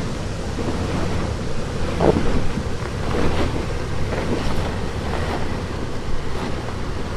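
Wind buffeting the microphone over the low rumble of an off-road vehicle working along a rocky trail, with a few brief sliding whines in the middle.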